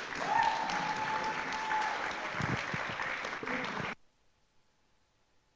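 Audience applauding, with one long held cheer over it for about two seconds. The applause cuts off suddenly about four seconds in.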